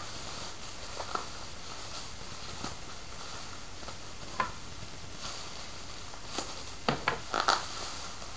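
Bubble wrap being handled and unwrapped: scattered soft crinkles and rustles, with a quick cluster of sharper plastic crackles about seven seconds in.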